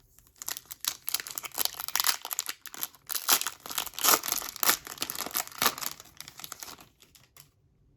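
Hockey card pack's wrapper being torn open and crinkled by hand, a dense crackling that stops about seven seconds in.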